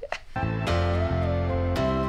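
Background music starts a moment in: held chords over a steady low bass, with a melody line that slides between notes.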